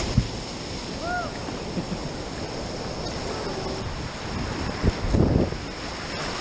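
Rushing river water with wind buffeting the microphone, a brief high chirp about a second in and a louder burst of rough noise about five seconds in.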